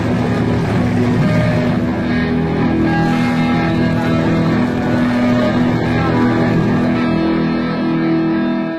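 Background music with sustained notes that change pitch in steps.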